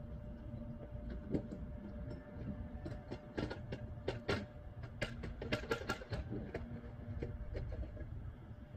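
A steady low rumble with a faint steady hum, and a run of sharp, irregular clicks and knocks from about three seconds in until past the six-second mark.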